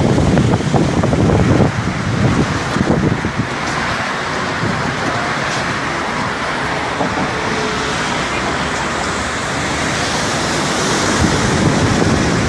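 Sea surf and passing road traffic under steady noise, with wind buffeting the microphone in gusts during the first few seconds; the hiss swells again near the end.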